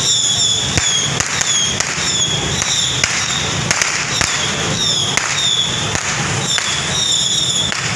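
Firecrackers going off in irregular sharp cracks, over a steady crowd-and-street background, with a high repeated chirping tone about twice a second.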